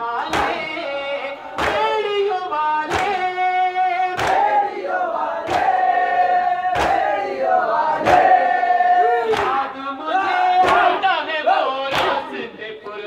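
A Shia noha: a male reciter singing through a microphone with a group of men chanting along in held notes. The mourners' hands strike their chests in unison (matam), about once every 1.3 seconds, keeping the beat.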